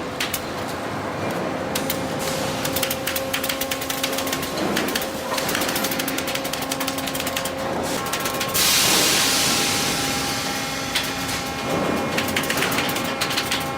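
Sawmill lumber-handling machinery running: a steady hum with rapid clicking and rattling throughout. A loud hiss comes in about eight and a half seconds in and fades over the next two seconds.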